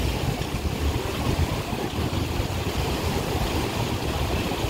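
River in flood, fast churning water rushing steadily past bridge posts, with wind rumbling on the microphone.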